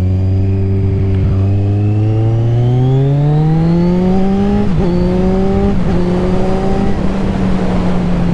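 A 2015 Kawasaki Z1000's inline-four engine, fitted with Akrapovič silencers, accelerating: the revs climb for about four and a half seconds, then two quick upshifts each pull the pitch down briefly before it holds roughly steady. Wind rushes over the microphone, louder toward the end.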